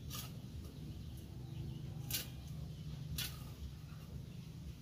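A blade cutting bamboo in three short, sharp strokes, about a second or two apart, over a steady low hum.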